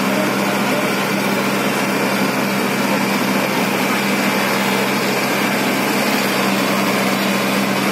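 Diesel tractor engine running steadily, with a constant low hum.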